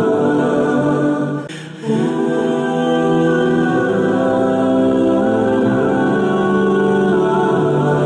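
Background music of long held, choir-like vocal notes, with a brief dip about one and a half seconds in.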